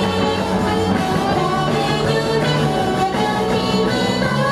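Live band playing an upbeat pop-rock song on electric guitars and keyboard with a steady beat.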